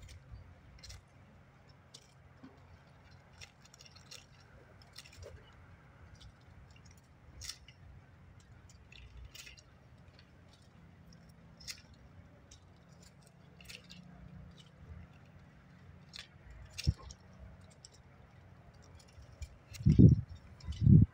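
Faint scattered ticks, clicks and rustles of long fleshy succulent leaves being lifted and shifted on a pile. Near the end there is a sudden loud low rumble.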